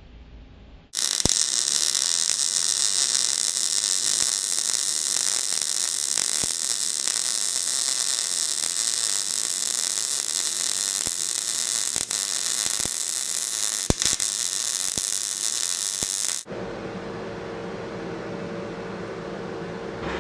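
Electric arc welding a crank pin into a steel crank web: a loud steady crackling hiss with scattered sharp pops starts about a second in and stops suddenly about three-quarters of the way through. A quieter steady machine hum follows.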